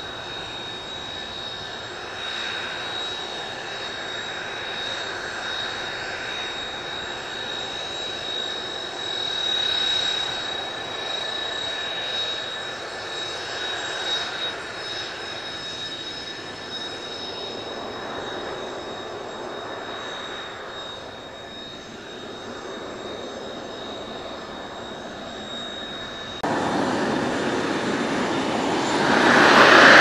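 Kawasaki T-4's twin turbofan jet engines running at taxi power, a steady high whine over the engine rush. About 26 seconds in the sound jumps suddenly louder and fuller, then swells to its loudest near the end.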